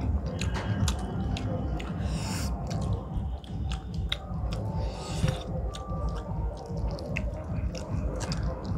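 Close-up eating sounds: chewing and lip smacks with many small wet clicks, as rice and curry are mixed by hand and eaten, over a steady low rumble.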